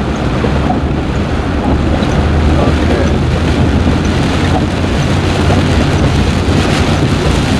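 A vehicle driving on a wet gravel road: a steady low engine hum under a constant wash of tyre and water noise.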